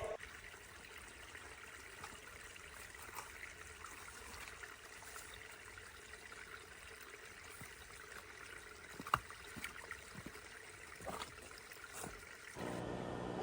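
Faint steady hiss of background ambience with a few soft clicks and taps; a low steady hum comes in shortly before the end.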